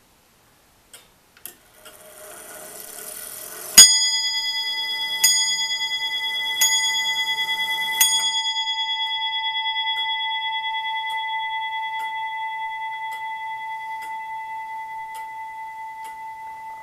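The bell of a 1690 William Clement 30-hour longcase clock's lantern movement striking the hour. A couple of seconds of rising whirring from the movement comes first, then four strokes on the bell about a second and a half apart. The last stroke is left ringing and slowly fades.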